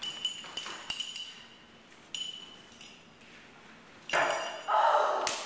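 Clinking of a handheld cup, each clink leaving a short ringing tone: several in the first second and one more about two seconds in. Near the end comes a louder, noisy stretch, closed by a sharp knock.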